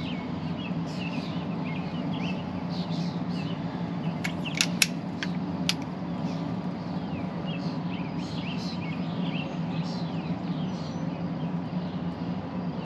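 Birds chirping over a steady low hum. A few sharp clicks come about four to six seconds in, as the HW97K underlever air rifle's action is closed after loading a pellet.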